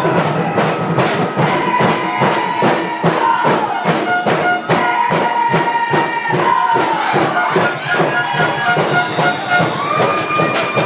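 Music with a quick, steady beat and a melody of held notes that step up and down.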